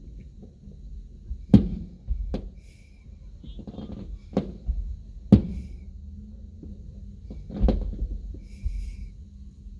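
Aerial fireworks exploding in a public display: about five sharp booms at uneven intervals with low rumbling between them. The booms are heard from inside a closed car.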